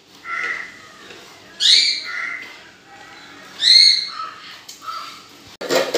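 A bird calling: two loud, high calls about two seconds apart, with fainter calls before and after them.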